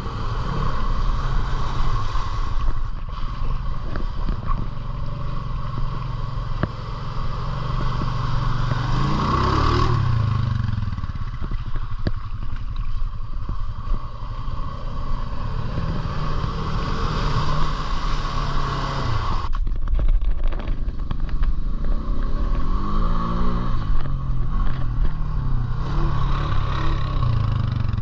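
Off-road vehicle engine running while driving on a trail, revving up in pitch about ten seconds in and again around twenty-three seconds, with a clatter of knocks from the ride about twenty seconds in.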